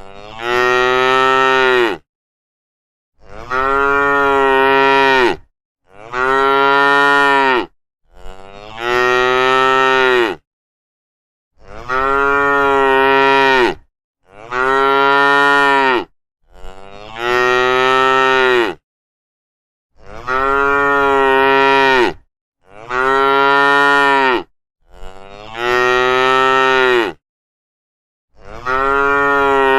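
Cattle mooing over and over: about eleven long, drawn-out moos of roughly two seconds each, with short silent gaps between them.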